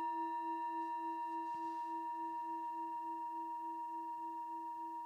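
Singing bowl ringing after a single strike, slowly fading, its low tone wavering in a steady pulse about three times a second. It is rung to close the meditation.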